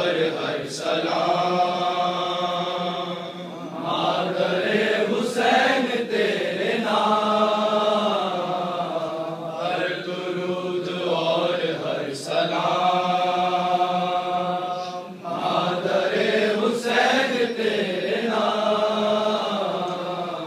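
A male reciter chants a noha (Urdu mourning lament) unaccompanied, in slow, long-held melodic lines of a few seconds each.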